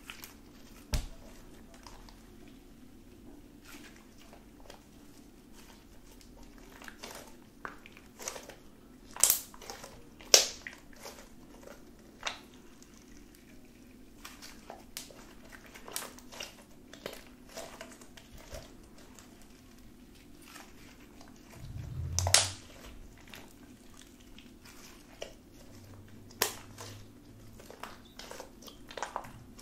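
Blue glue slime mixed with deodorant stick being stretched and squeezed by hand, giving sticky crackles and sharp pops of trapped air at irregular intervals. The loudest pops come about nine, ten and twenty-two seconds in, over a faint steady hum.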